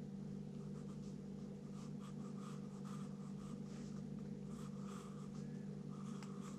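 Wooden pencil scratching on paper in many quick short strokes, drawing letters, over a steady low hum.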